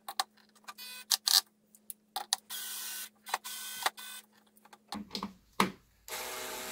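Cordless drill/driver driving a ski binding screw into a sheetrock anchor set in a stripped screw hole in the ski, in several short half-second runs of motor whine broken by sharp clicks, as the screw tightens and torques out.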